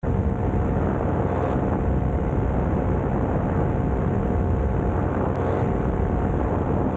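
Drone's electric motors whining steadily, several pitches held together, over a low rumble of wind on the microphone.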